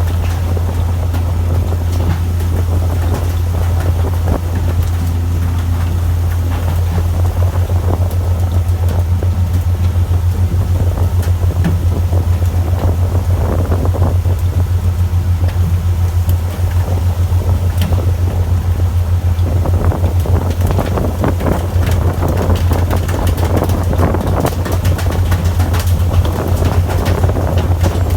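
A fishing boat's engine runs with a steady low drone, overlaid by many irregular knocks and rattles that become busier after the first few seconds.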